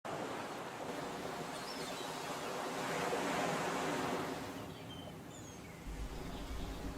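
Ocean waves washing in, swelling to a peak about halfway through and then drawing back, with birds chirping. A low hum comes in near the end.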